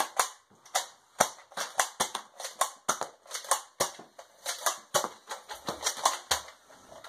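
Nerf blasters firing in rapid succession: a string of sharp pops, about three a second.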